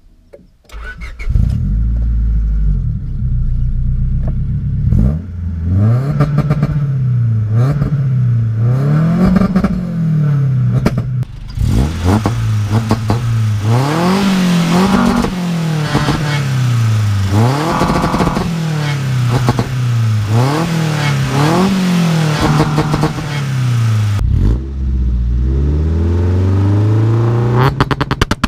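Honda Civic's 1.5-litre D15 four-cylinder VTEC engine, tuned to a claimed 160 hp, starts about a second in and is then revved again and again, its pitch rising and falling every second or two. It takes a last higher rev near the end, where sharp exhaust pops begin.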